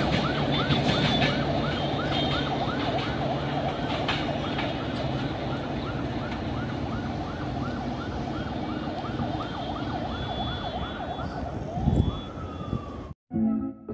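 A siren yelping in quick rising-and-falling whoops, about three a second, over the low rumble of a train pulling away. Near the end there is a single rising-and-falling tone, then the sound cuts off suddenly.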